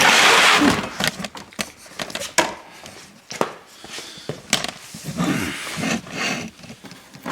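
Steering gearbox parts being handled and moved: a scraping drag at the start, then scattered clicks and clunks of metal parts.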